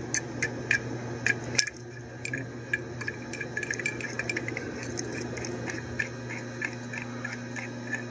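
Many small metallic clicks and ticks as the nut on a chiller filter-drier core's metal top cover is turned off by hand, over a steady low hum.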